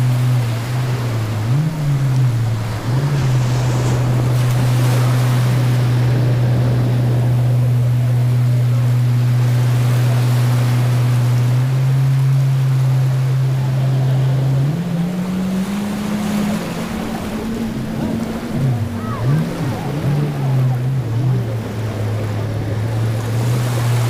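A motor's low, steady hum. Its pitch dips briefly near the start and again around 19 to 20 seconds, and steps up about 15 seconds in. Waves wash underneath throughout.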